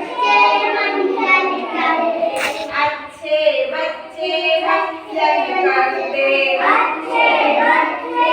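Group of young children singing a Hindi nursery action song together in chorus.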